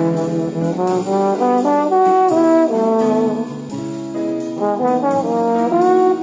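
Instrumental background music: a melody of changing pitched notes over a regular beat.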